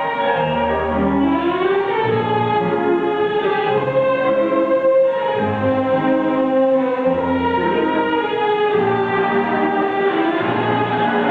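Slow instrumental background music: long held melody notes over low bass notes that change every second or two.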